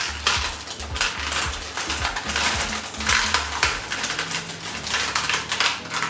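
Small river rocks clattering and clicking onto a tabletop fountain's tiers and basin as they are shaken out of a plastic bag, the bag crinkling. It goes in several runs of rattling and tails off near the end.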